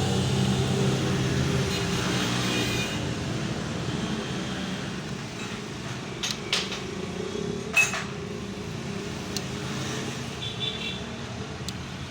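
A steady mechanical hum that fades over the first few seconds, with a few sharp metal clicks and knocks from hand tools at work on the motorcycle's kick-start mechanism, the loudest about eight seconds in.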